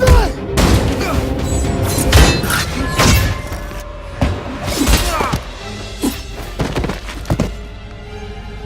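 Film fight-scene soundtrack: dramatic score with a run of heavy thuds, hits and crashes, one every second or so.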